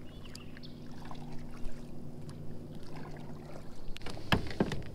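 Fishing kayak under way, its drive giving a steady low hum. A few sharp knocks follow about four seconds in as a rod is pulled from its holder.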